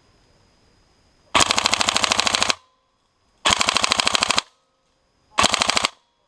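Tokyo Marui HK416D airsoft electric rifle firing on full auto in three rapid bursts: the first about a second long, a second of about a second, and a short half-second one near the end.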